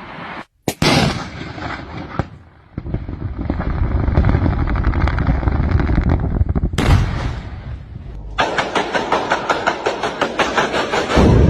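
Explosive rock blasting: a sharp bang followed by a long low rumble, another sudden blast partway through, then a fast string of sharp cracks several times a second, as in a timed sequence of charges, and a deep boom near the end.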